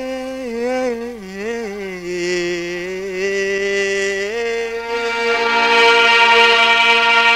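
Music from a Somali song: a single melodic line of long, ornamented held notes with wavering pitch. About four and a half seconds in the melody steps up, more instrument lines join, and it grows louder.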